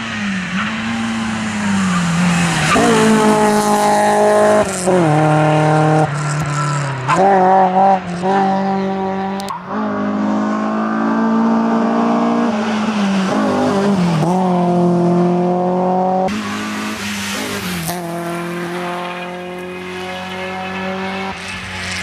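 BMW E30 318iS rally car's four-cylinder engine driven hard at high revs, its note climbing and then dropping sharply again and again.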